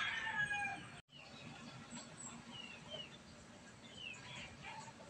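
Faint chirps of small birds: short falling notes a few times over low background noise. In the first second the fading tail of a louder sound cuts off abruptly.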